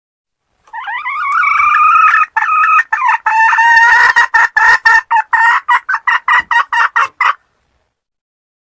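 Female red junglefowl (wild hen) cackling: one drawn-out call, then a quick run of short clucks at about four a second that stops abruptly. It is the hen call used to lure wild roosters into a trap.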